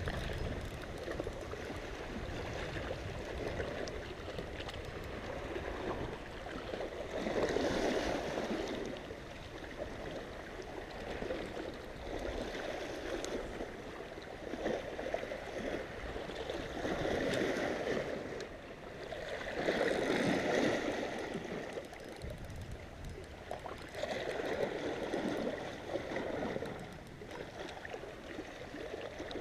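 Small sea waves washing against shoreline rocks, each surge swelling and fading every few seconds.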